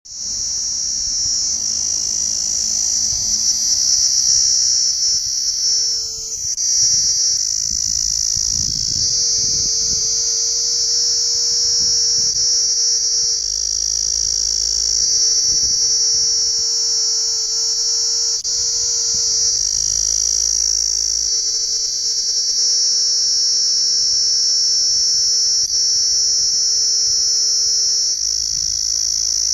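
Cicadas calling in chorus: a loud, steady, high-pitched buzz that doesn't let up, with a fainter steady lower tone beneath it.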